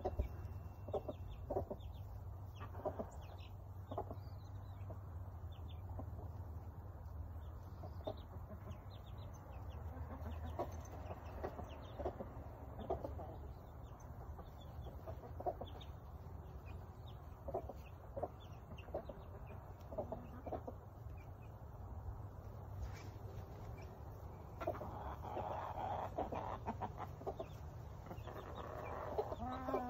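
Backyard chickens clucking on and off in short, scattered calls, growing busier and louder over the last few seconds, with a low steady rumble underneath.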